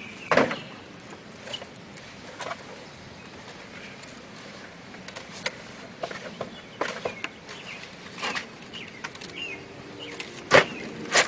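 Scattered thumps and knocks from a person jumping and clambering about on a wooden deck and its railing. The loudest thump comes just after the start and another near the end, with lighter knocks and clicks in between.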